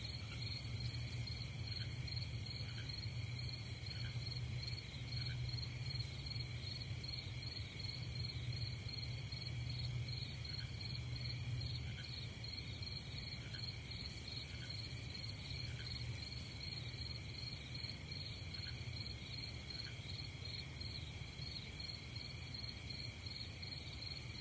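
Night-time insect chorus, crickets trilling steadily at several pitches at once, over a low steady hum.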